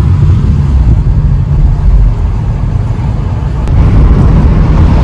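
Steady low rumble of a car being driven, heard from inside the cabin: engine and tyre noise.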